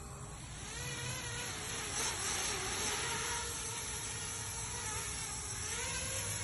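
Homebuilt FPV quadcopter's brushless motors and propellers whirring in flight, the pitch wavering up and down as the throttle changes.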